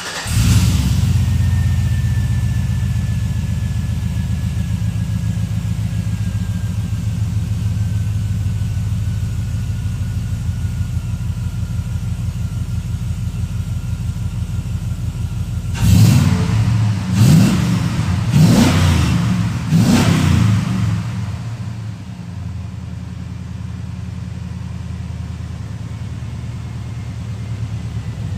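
Cold start of a 2000 Chevy Silverado with long-tube headers and true dual exhaust through a 22-inch Magnaflow muffler, two in, two out. The engine fires up and runs at a fast cold idle, is revved four times in quick succession a little past halfway, then settles to a lower, steadier idle.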